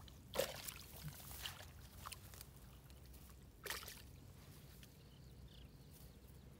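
Hands sloshing and splashing faintly in shallow muddy water while groping through the mud for fish by hand, with two louder splashes, about half a second in and near four seconds in, and a few softer ones between.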